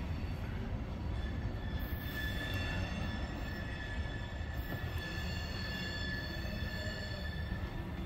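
Freight train of tank cars rolling slowly around a curve: a steady low rumble with a thin, high wheel squeal from the curved rail, growing stronger about two seconds in.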